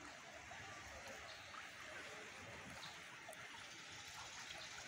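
Faint, steady sloshing and trickling of floodwater, stirred as the camera moves through it.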